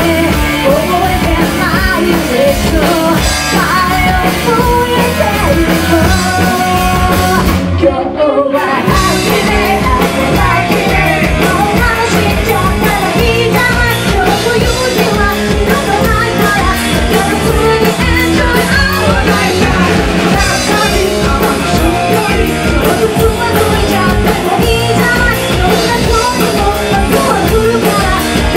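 Live rock band with a woman singing lead through a microphone over drums, bass and electric guitar. The band briefly drops out for a moment about eight seconds in, then comes back in.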